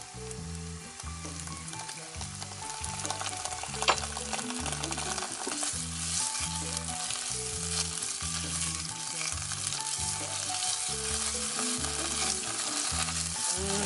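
Onions and red curry paste sizzling in hot oil in a skillet while a wooden spatula stirs and scrapes them around the pan, with one sharp knock about four seconds in.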